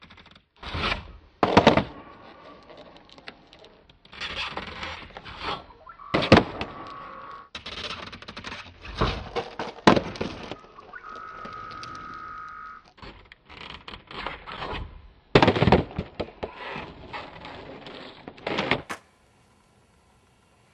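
Skateboard taildrops: the board's tail and wheels knocking on a ledge and on concrete steps, with sharp pops and landing slaps and wheels rolling on pavement between them. Several loud hits, then the sound drops away near the end.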